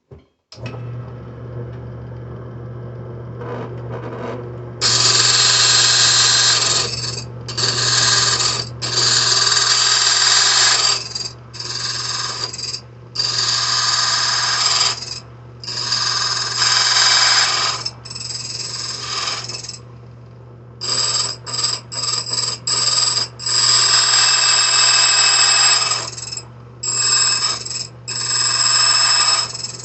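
Foley Belsaw Model 200 key machine's motor running steadily while its cutter plunges again and again into a flat steel safe deposit box key blank. Each cut is a loud, high-pitched bite lasting a second or two, with short breaks between cuts.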